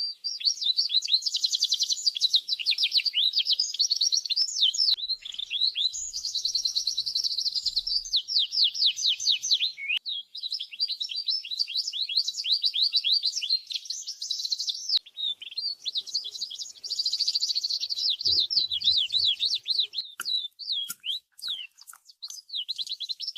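Domestic canary singing a long song of rapid trills and sweeping whistled notes, with a brief pause about ten seconds in and looser, scattered notes near the end.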